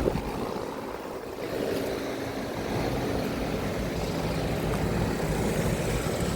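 Outdoor air-conditioner condensing units running, a steady hum under a noisy rush of fan air and wind on the microphone.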